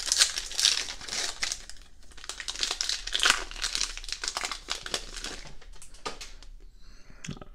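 Foil wrapper of a 2018-19 Optic basketball card pack crinkling and tearing as it is ripped open by hand. It comes as a string of crackly rustles, loudest about three seconds in, thinning out near the end.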